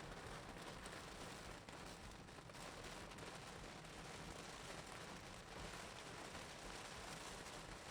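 Faint, steady wash of heavy rain and wet-road tyre noise heard inside a car cabin, with no distinct events.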